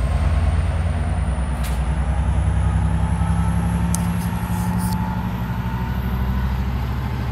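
Diesel locomotive engine running with a steady, low, throbbing rumble.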